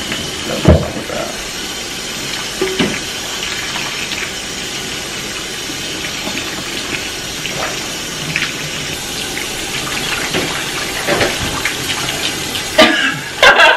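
Kitchen faucet running steadily into a stainless steel sink, the stream splashing over frozen pork chops held under it to thaw. A single thump comes just under a second in.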